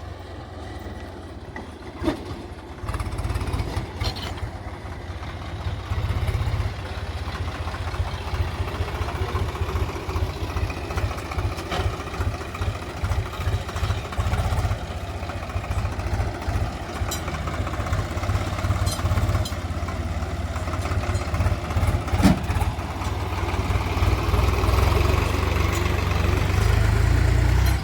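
Heavy machine's engine running, getting louder in steps as it is worked harder, with a couple of sharp metallic knocks.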